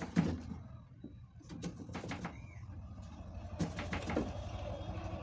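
Scattered light clicks and taps of a soldering iron and tools working the solder off the pins of a memory IC on a CRT TV's circuit board, over a low steady hum. A motor engine's steady drone comes in about halfway through.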